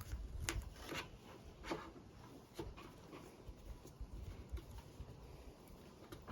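A few light clicks and knocks of a Thermacell mosquito repeller being handled, most of them in the first three seconds, as its butane canister is taken out.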